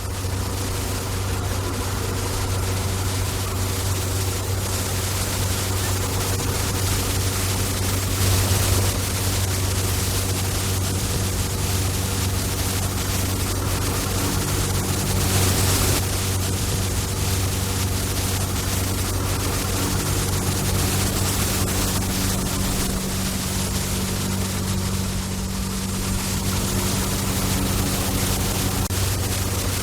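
Street-cleaning truck running steadily: a constant low engine drone under a broad, even hiss, which swells briefly about a third of the way in and again near the middle.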